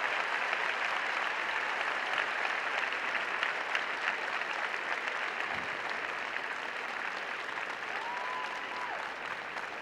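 Arena audience applauding steadily, a dense patter of many hands that slowly fades toward the end.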